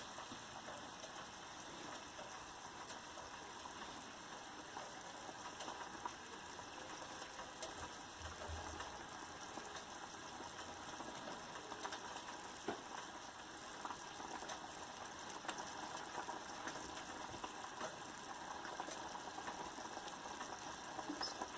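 Thick curry boiling in a pan on a high flame: a faint, steady bubbling crackle of many small pops.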